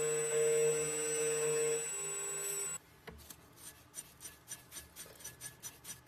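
A steady humming whine cuts off sharply about three seconds in. It is followed by a brush sweeping metal chips off a key cutting machine's vise in quick repeated strokes, about three a second.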